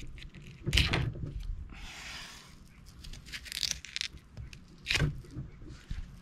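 Fillet knife cutting and scraping through a bluefin tuna towards the spine, with scattered light ticks and two knocks, about a second in and about five seconds in.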